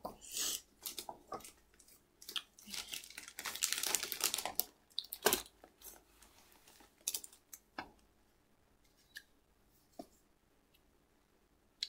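Comic books being handled: paper rustling and crinkling with light taps, busiest in the first five seconds, then a few separate sharp clicks.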